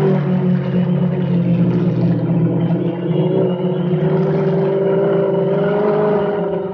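Multirotor drone's motors and propellers humming steadily in flight, the pitch wavering a little.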